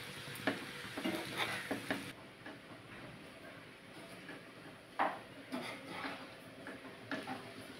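Metal spatula scraping and tapping in a nonstick frying pan as cooked rice is stirred and tossed with spices: irregular scrapes and clicks, with one louder knock about five seconds in.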